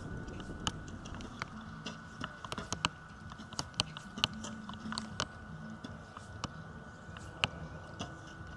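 Arrows striking target bosses and bows being shot along the shooting line: irregular sharp knocks and clicks, several a second at times, over a faint steady high tone.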